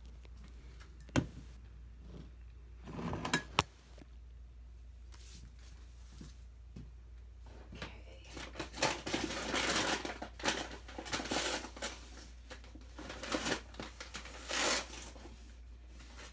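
Handling noise in a small kitchen: a sharp knock and a brief rustle with a click in the first few seconds. Then several seconds of irregular rustling and light knocks, over a faint steady hum.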